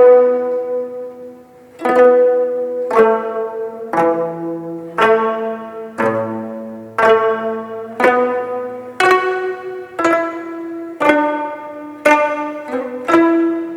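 Jeongak gayageum ensemble, Korean silk-stringed zithers, playing a slow court-style melody. Single notes are plucked about once a second, each ringing and fading before the next.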